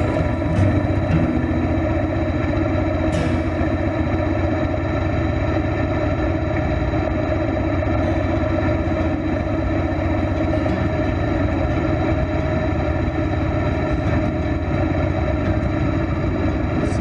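Harley-Davidson Heritage Softail's V-twin engine running steadily as the bike rolls slowly at low speed.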